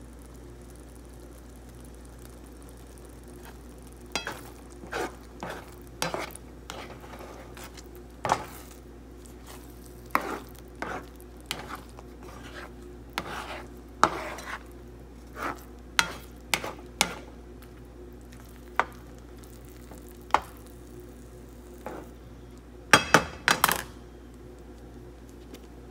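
A utensil stirring a thick sardine-and-egg sauce in a frying pan, scraping and knocking against the pan in irregular strokes from about four seconds in, loudest in a quick cluster near the end, over a steady low hum.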